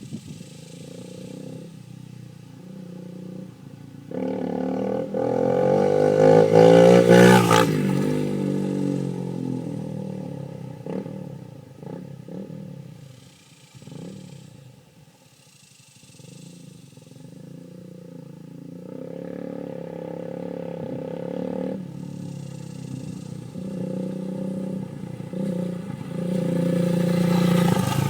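Honda CRF230M's single-cylinder four-stroke engine through a Two Brothers aftermarket exhaust, ridden past. It comes up suddenly about four seconds in and revs higher to a loud pass, then fades away. It builds again and is loudest near the end as the bike returns.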